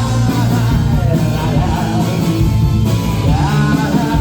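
Rock music: a band playing, with a sung voice, between lines of a song.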